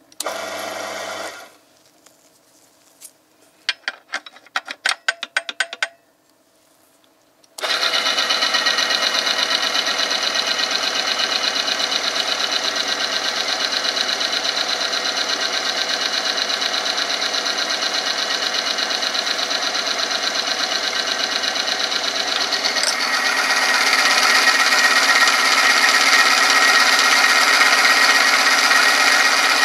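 Oil-film friction testing machine running: its electric motor turns a steel roller in engine oil against a loaded test sample, a steady hum with a rubbing, grinding noise. It runs briefly at the start, a run of clicks follows, then it runs continuously from about eight seconds in. Near the last third, with more weight on the lever arm, the grinding grows louder and rougher.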